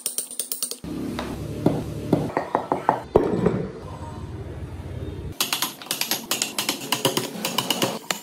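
Instrumental background music with a quick, ticking percussive beat, broken by abrupt cuts between short stretches of workshop noise.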